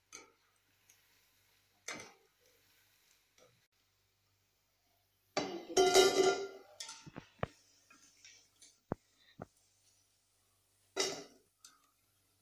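A wire frying skimmer clinking against a steel bowl and the frying pan as fried fritters are lifted out and tipped into the bowl: scattered clicks and taps, a loud ringing metal clatter about six seconds in, and another clack near the end.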